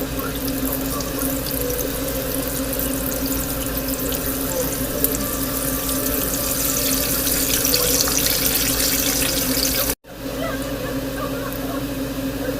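Zucchini slices sizzling in hot frying oil: a steady crackling hiss with a low hum underneath. The sound cuts out abruptly for a moment about ten seconds in, then resumes.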